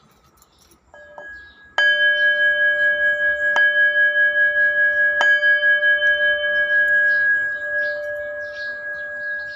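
Brass bowl bell on a cushion, struck with a wooden striker: a light tap about a second in, then three strikes about a second and a half apart. It rings on with a steady, wavering hum that fades near the end.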